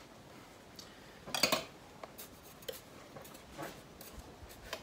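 A spoon digging into a plastic tub of brown sugar: a few short scrapes and knocks, the loudest about a second and a half in, with smaller ones after.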